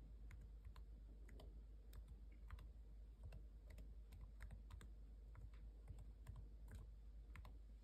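Faint, irregular key clicks from typing a password on an HP Chromebook laptop keyboard.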